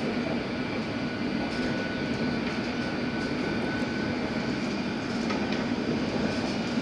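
London Underground S8 Stock train running, heard from inside the carriage: a steady rumble of wheels on the track with a faint, steady high tone above it and a few faint ticks.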